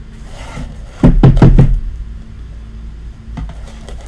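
Hands handling a trading-card box and a hard plastic card case: a quick run of loud knocks and thuds about a second in, then a few lighter clicks near the end.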